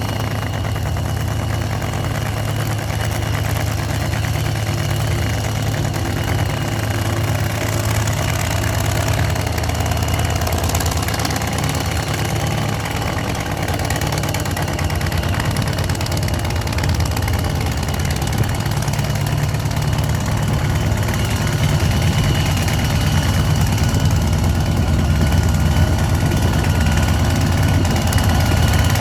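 Funny car's supercharged V8 drag engine idling with a steady, rough, heavy rumble, growing slightly louder toward the end.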